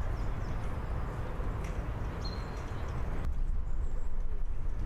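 Steady background noise dominated by a low rumble, with a few faint short high chirps; the sound changes abruptly about three seconds in, as at an edit.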